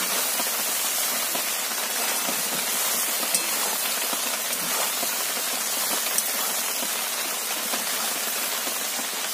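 Chicken pieces, onion and capsicum in spice paste sizzling steadily in an aluminium kadai while a metal spatula stirs them.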